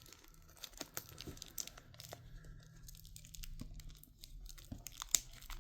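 Stiff plastic shrink-wrap on a steelbook case being cut open with scissors: irregular crinkling, tearing and sharp snaps, with one louder snap about five seconds in.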